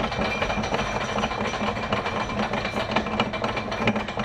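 Roller coaster train being hauled up the chain lift hill: a steady clatter of the lift chain with rapid clicking of the anti-rollback ratchet, and a steady hum underneath.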